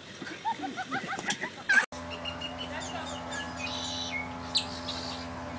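Small birds chirping in short, rising calls. About two seconds in the background changes to a steady low hum, with more high chirps over it.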